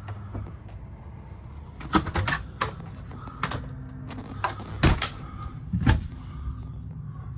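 Doors of a motorhome's gas/electric refrigerator, its freezer compartment and a wooden overhead cabinet being opened and handled: a handful of sharp clicks and knocks, loudest about five and six seconds in, over a steady low hum.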